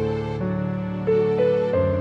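Soft background music: slow, sustained notes that change every half second or so.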